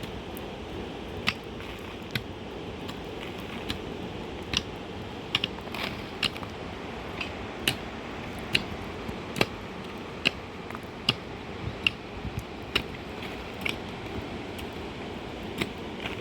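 Steady rain with scattered sharp drops ticking irregularly, about one or two a second, on a hard surface.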